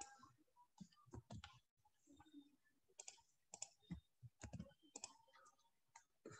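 Faint, irregular clicks of a computer mouse and keyboard, a dozen or more short clicks.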